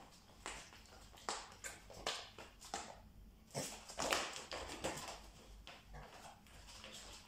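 A Staffordshire bull terrier's paws in dog boots stepping and scuffing on a hardwood floor as it turns about: an irregular run of taps and brushing scrapes, busiest about halfway through.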